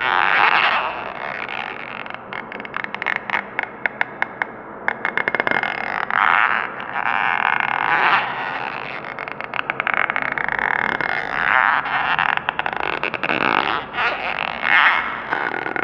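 Squealing and screeching sound effect: a string of drawn-out, high squeals, broken between about two and six seconds in by a fast stuttering chatter.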